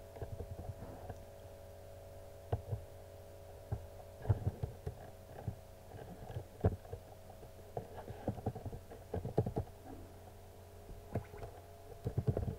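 Computer keyboard keys tapped in short, irregular clicks over a steady electrical hum.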